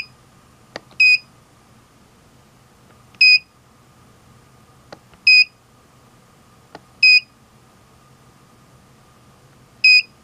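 Handheld Extech LCR meter giving a short high beep at each button press as it is stepped through its measurement modes: about six identical beeps at uneven gaps of one to two seconds, with faint button clicks between some of them.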